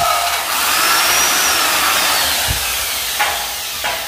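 Electric drill running under load, boring into the metal furring framing of a ceiling. Its motor whine wavers up and down in pitch, then it slows and stops near the end with a couple of sharp clicks.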